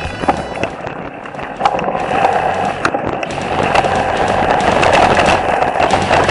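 A mountain bike rolling over a rough dirt trail, its tyres crunching and the bike clattering with frequent sharp knocks over bumps.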